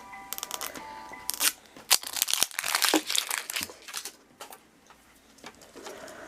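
Crinkling and tearing of a toy package's wrapper as it is opened by hand, in bursts of crackles that are loudest about two to three seconds in, with a short quiet pause before more rustling near the end. A faint chiming tune plays at the start.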